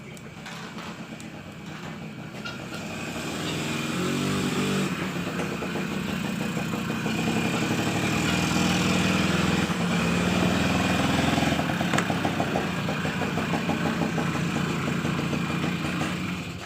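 An engine running, growing louder over the first few seconds, its pitch shifting now and then, and cutting off abruptly at the end.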